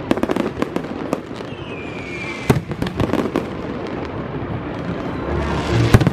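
Fireworks display: a rapid string of bangs and crackles, with a whistle that falls slightly in pitch about a second and a half in. Near the end a hiss builds into the loudest bang.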